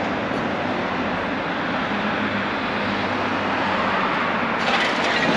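Steady traffic noise from a city street as cars pass. Near the end a clicking rattle with thin ringing tones grows louder.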